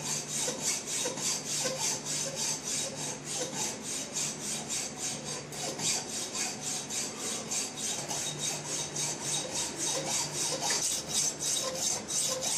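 Hacksaw driven back and forth by a cordless drill, its blade rasping through the workpiece in rapid, even strokes, about four a second. A low motor hum comes and goes underneath.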